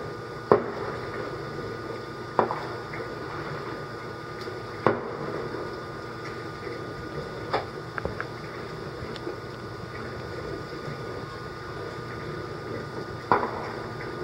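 Distant aerial firework shells bursting: about six sharp bangs a few seconds apart, the loudest about half a second in, each followed by a short echoing tail, over steady background noise.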